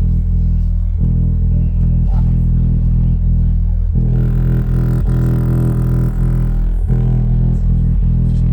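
Bass-heavy music played loud through a speaker with a subwoofer, its deep bass notes changing every few seconds.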